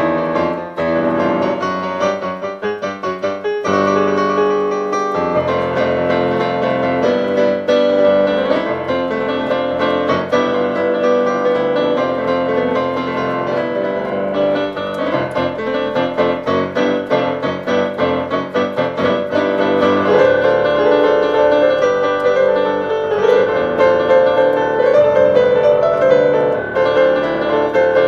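Digital piano played with both hands in a piano voice: a continuous, flowing passage of many quick notes and chords.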